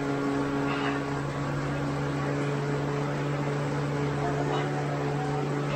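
Indoor bicycle trainer droning steadily under constant pedalling, an even-pitched mechanical hum that holds the same note.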